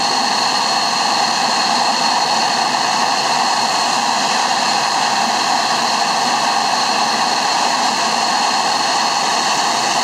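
Mirage 2000D's SNECMA M53 jet engine running steadily on the ground: an even rushing noise with a steady high whine over it.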